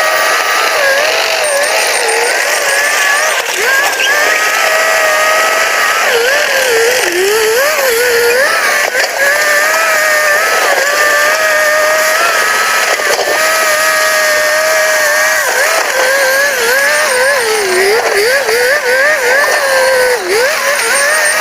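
Bulldozer engine and hydraulics working hard, the pitch dipping and recovering over and over as the engine lugs under load while the machine strains against a heavy rock.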